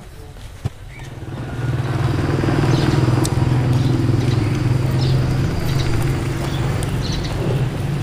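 A small engine running steadily, growing louder over the first couple of seconds and then holding an even hum. A single sharp click comes just before it swells.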